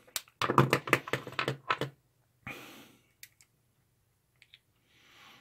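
A quick run of light clicks and taps from the small parts of a vaporizer as it is handled and its casing pressed back together. Then a short rustle and a few scattered faint clicks.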